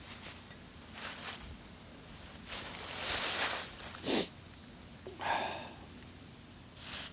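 Rustling and shuffling noises in a run of short bursts, the loudest about three seconds in, like movement in dry leaves or handling of gear.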